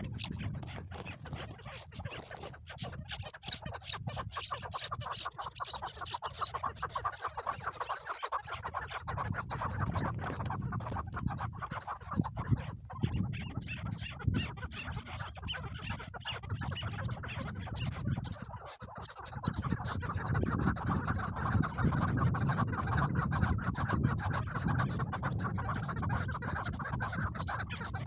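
Chukar partridges calling, a dense rapid clucking chatter that grows louder about two-thirds of the way through, over a low rumble and scattered clicks.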